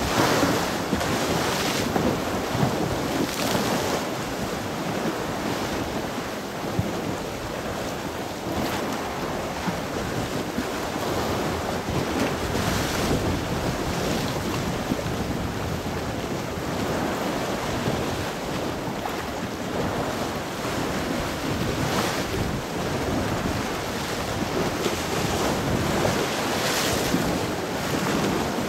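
Wind blowing across the microphone over sea waves washing in, a steady noise that swells every few seconds.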